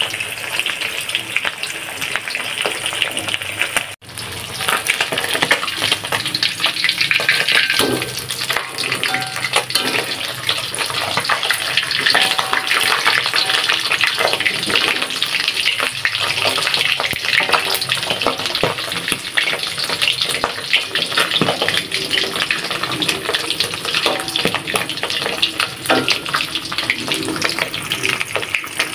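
Smoked fish deep-frying in hot oil in an aluminium wok: a steady, dense crackling sizzle. It cuts out for an instant about four seconds in.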